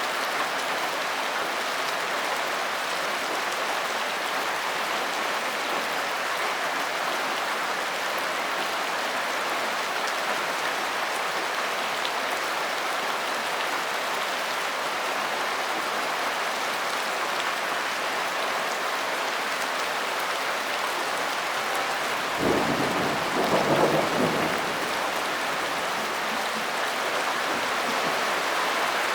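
Steady, heavy rain falling and pattering on surfaces. A brief low rumble swells about 22 seconds in and lasts a couple of seconds.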